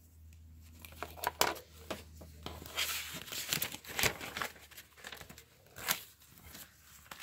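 Plastic Lego pieces being handled and pressed together, with scattered small clicks and knocks on a wooden table, the sharpest about four seconds in, and a stretch of rustling near the middle.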